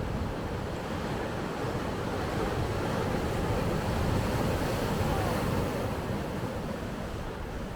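Sea waves washing onto the shore, with wind buffeting the microphone; the surf swells a little in the middle.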